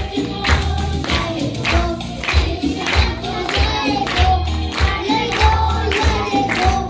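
Upbeat worship song: voices singing together over a steady, driving beat.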